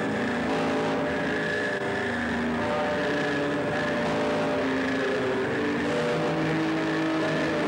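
Live electronic drone music from the performers' electronic instruments: several sustained tones over a dense, noisy hiss, at an even loudness, the tones shifting to new pitches every few seconds.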